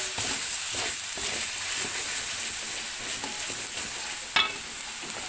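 Ground spice paste sizzling in oil in an aluminium wok while a spatula stirs and scrapes through it, with one short clink about four and a half seconds in.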